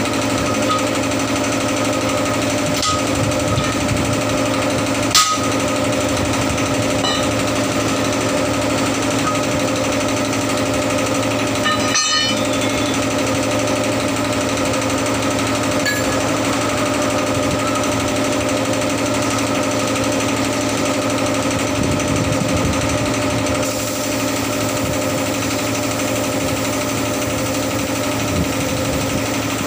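Air compressor running steadily with a constant machine drone. A single sharp metallic clank comes about five seconds in.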